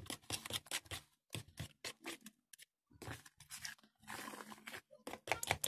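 Metal spoon scraping and clicking against a plastic bowl in quick, irregular strokes, stirring flour into a yeast starter until it becomes a thick batter. The stirring pauses briefly about halfway through.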